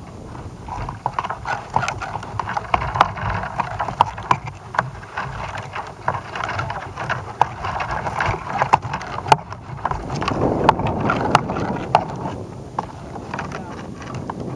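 Irregular clicks and knocks from a camera payload in its plastic housing as it sways and turns on a balloon tether, over a steady rush of wind on the microphone.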